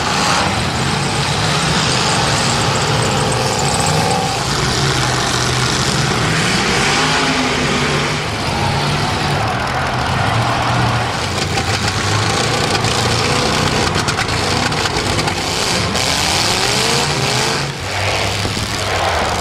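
Several car engines running and revving, their pitch rising and falling, over a steady noisy wash.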